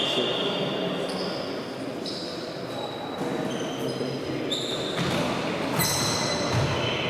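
Players' shoes squeaking repeatedly on a sports-hall floor during a tchoukball game, in short high squeals, with a few ball thuds and the echoing murmur of the hall.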